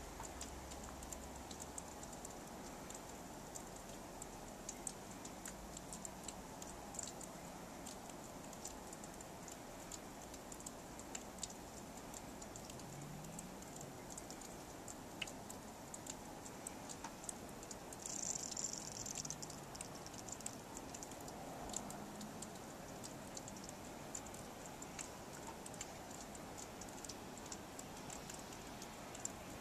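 Faint, irregular light ticking of falling snow landing on nearby surfaces, over a low steady hiss. A brief louder hiss comes about eighteen seconds in.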